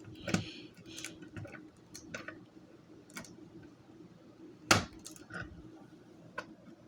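Scattered light clicks and knocks of a manual fire alarm pull station being handled, with one sharper click about two-thirds of the way through.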